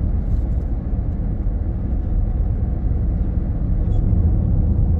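Steady low rumble of tyre and engine noise inside a car's cabin while it drives along a highway.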